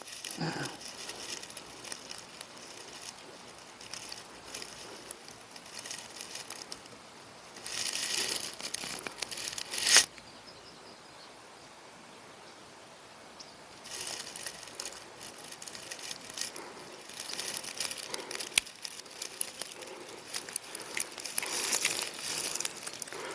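Intermittent rustling and crinkling handling noise with a few sharp clicks, the loudest click about ten seconds in, followed by a few quieter seconds.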